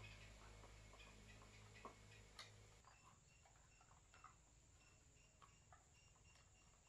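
Near silence, with faint scattered clicks and taps of a car's plastic folding side-mirror assembly and a screwdriver being handled. Faint short high chirps repeat in the background from about halfway through.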